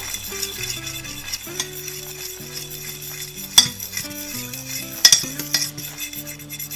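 A metal fork stirring and scraping a bubbling butter-and-flour roux in a stainless steel saucepan, with the roux sizzling steadily. The fork clinks sharply against the pan about three and a half seconds in and again around five seconds.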